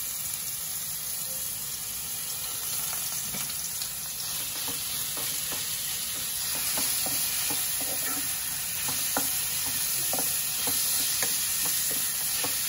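Grated bottle gourd sizzling in ghee in a non-stick frying pan. From about halfway through, a wooden spatula scrapes and taps against the pan as it is stirred.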